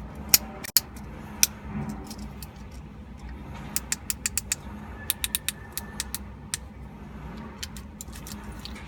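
Buttons and toggle switch of a high-quality plastic fidget cube clicking, sharp single clicks coming in irregular runs of several at a time.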